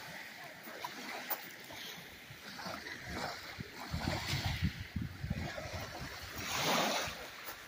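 Small waves washing onto a pebbly shore, with one wash swelling louder near the end. Wind buffets the phone's microphone in low gusts about halfway through.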